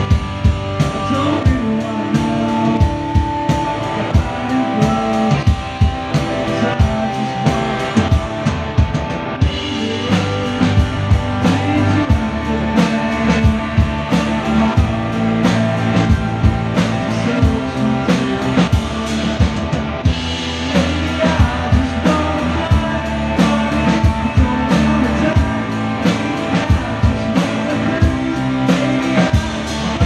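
A three-piece rock band playing live, with electric guitars and a drum kit keeping a steady beat.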